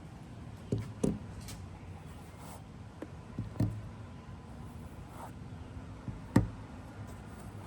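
Metal haptic fidget coins being handled, giving sharp clicks in pairs: about a second in, around the middle and near the end, the last the loudest.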